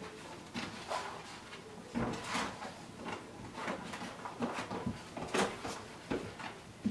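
Irregular hollow plastic knocks and scrapes as puppies paw, nose and push an overturned plastic laundry basket across a rug.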